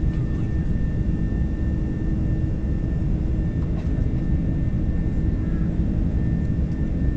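Jet airliner's engines running steadily, heard from inside the passenger cabin as a constant loud rumble with a high, even whine over it.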